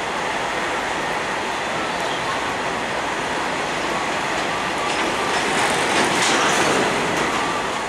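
Train running noise from the rails, a steady rumble with wheel clatter that swells about five to seven seconds in and then eases.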